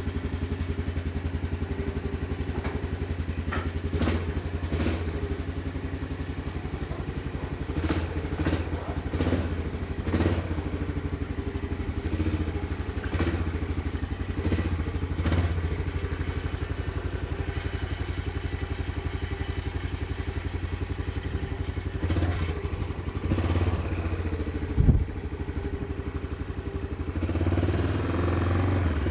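Yamaha Big Bear ATV's single-cylinder four-stroke engine running steadily as the machine is ridden, now on a new aftermarket carburetor after sitting for years. Occasional clunks and rattles from the machine, one sharp knock near the end, and the engine picks up just before the end.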